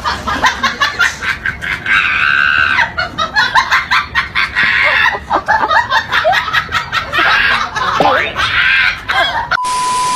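A group of people laughing loudly and shrieking in quick, repeated bursts. Near the end a steady beep cuts in for about a second.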